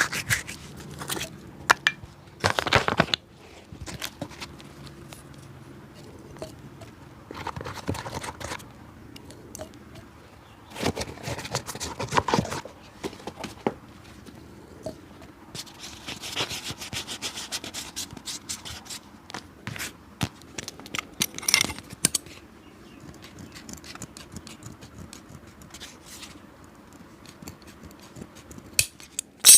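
Hand tools working on a shoe: irregular scraping and rubbing strokes with scattered clicks and light knocks.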